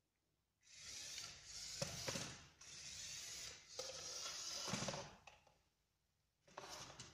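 LEGO remote-control car's electric motors and plastic gear train whirring as it drives, with its plastic wheels on a hardwood floor and a few sharp clicks and knocks. It runs for about four and a half seconds, stops, and starts again near the end.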